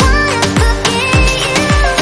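Background music: an electronic dance track with a steady beat, deep bass notes that fall in pitch on each hit, and a held melody over it.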